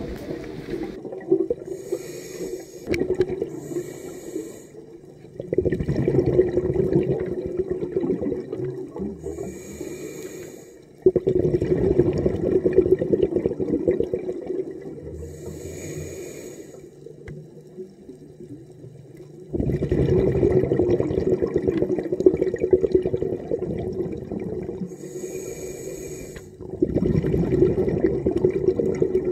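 Scuba diver breathing underwater through a regulator: a short hiss on each inhale, then a long rush of exhaust bubbles on each exhale, repeating every few seconds.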